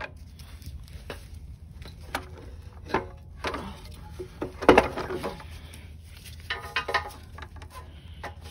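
Hand tools clicking, scraping and knocking against the recoil starter housing of a small Subaru engine while its bolts are worked loose, with a louder scrape or clunk about halfway through.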